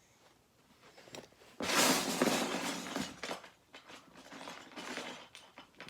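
Loose plastic Lego bricks rattling and clinking as a hand rummages through them, loudest for about a second and a half near the start, then softer scattered clicks.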